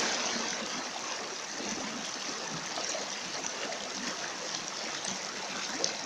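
Shallow stream water rushing and splashing over rocks in a small rapid, a steady rush with faint bubbling.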